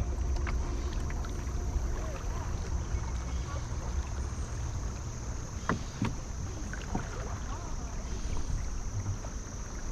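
Kayak drifting on a river: a steady low rumble of water and wind on the microphone, with a few faint clicks and knocks about halfway through.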